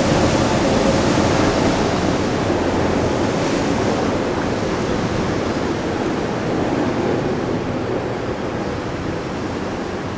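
Nishitetsu Ōmuta Line train running past, a steady rushing noise that slowly fades as it draws away.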